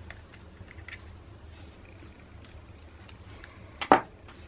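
Faint small clicks and scrapes of a precision screwdriver working tiny screws out of a compact camera's case. Near the end there is one sharp knock as the screwdriver is set down on the wooden tabletop.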